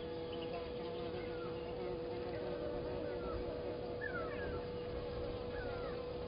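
Insects buzzing steadily, with a wavering buzz in the first half. Short downward-sliding bird whistles come several times from about two seconds in.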